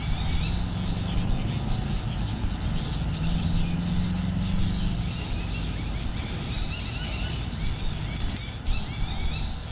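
Steady low rumble of distant road traffic, with faint high chirps near the end.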